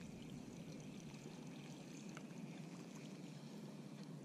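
Faint, steady outdoor hiss with a few faint ticks.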